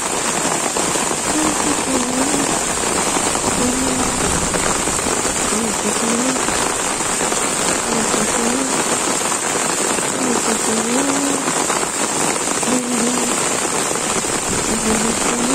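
Heavy monsoon rain pouring steadily onto leaves and flooded ground, a dense even hiss. A faint, wavering, voice-like sound comes and goes beneath it.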